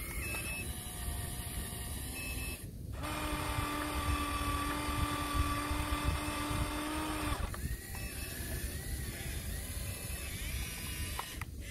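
Small electric motors of a radio-controlled toy excavator whining as the boom and arm move. The pitch wavers, then holds a steadier, higher whine for a few seconds in the middle. A few short, faint high beeps sound now and then.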